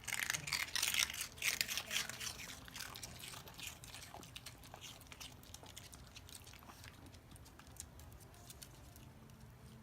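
Chihuahua crunching and chewing a hard treat, a dense run of crisp crunches over the first few seconds that thins out to occasional chews.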